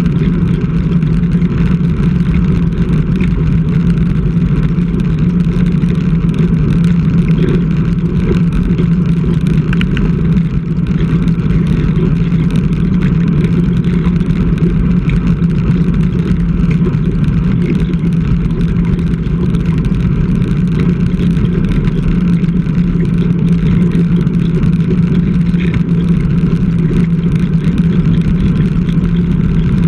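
Steady, unbroken wind and road noise on a bike-mounted action camera while riding a road bike, with a low rumble and hum throughout.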